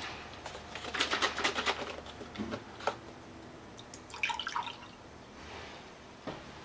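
Liquid poured from a paper carton into a ceramic mug, splashing for about a second and a half, followed by a second, shorter pour from another carton about four seconds in.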